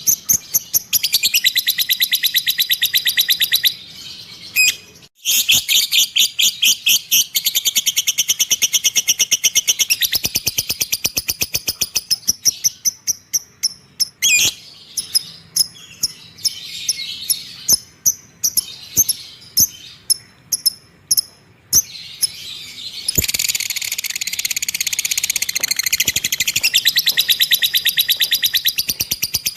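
A cage bird chattering in long, very rapid, high-pitched trills that last several seconds each. Through the middle the song breaks into shorter, separate notes with pauses, and a long trill starts again near the end.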